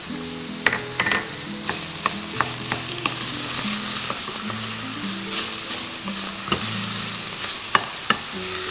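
Minced meat frying with onions in a stainless steel pot, sizzling steadily as it is stirred, with scattered sharp clicks and knocks of the stirring. Soft background music plays underneath.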